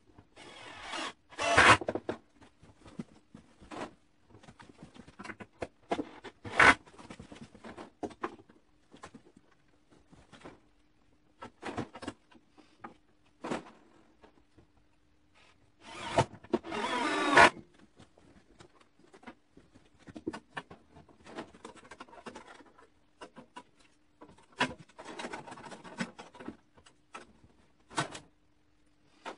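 Cordless power driver driving screws into wood in short bursts, the longest about two seconds near the middle, with knocks and rattles of handling between.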